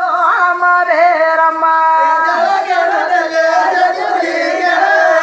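Group of men singing a chant-like folk song together, with long held notes.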